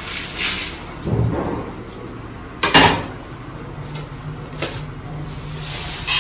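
Roasted lentils poured from a kadai into a steel pot with a rustling rattle, then clanks of metal pans and lids being handled. The loudest is a single sharp clank about two and a half seconds in, with lighter knocks later.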